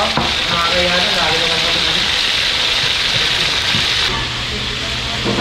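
Mudfish (snakehead) steaks frying in hot oil in a wok: a loud, steady sizzle that eases a little about four seconds in.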